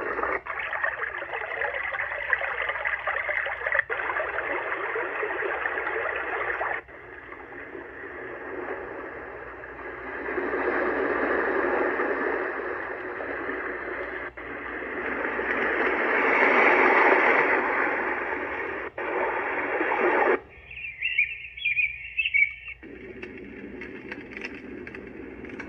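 Sleep sound machine playing its built-in soothing noise sounds through its small speaker, switched from one track to the next several times, with each sound a steady rushing hiss and one brief high chirpy sound near the end.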